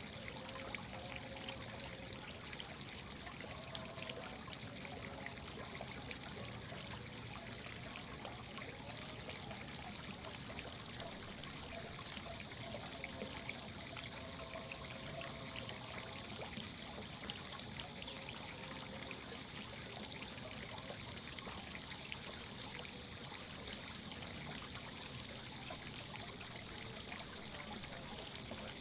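Running water trickling and splashing steadily, with many small droplet ticks.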